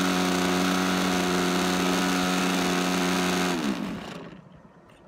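O.S. .46 two-stroke glow engine of an RC airplane running steadily; about three and a half seconds in its pitch drops and it stops within half a second as the propeller spins down.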